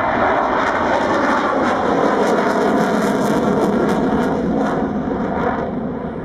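MiG-29's twin Klimov RD-33 turbofans running hard with afterburners lit through a high-speed turn: a loud, steady jet noise that fades a little near the end.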